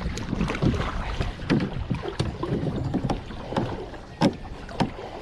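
Water splashing and slapping at a boat's side as a hooked shark thrashes alongside, with a run of short sharp knocks and splashes, the loudest about four seconds in.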